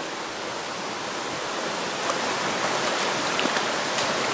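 Steady rushing of a shallow, rocky trout stream, with a few faint splashes around the middle and near the end.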